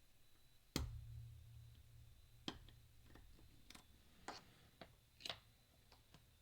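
Small sharp clicks of lock picks working in the core of a Mindy flat pagoda disc padlock: one louder click about a second in, then a scattering of lighter ticks.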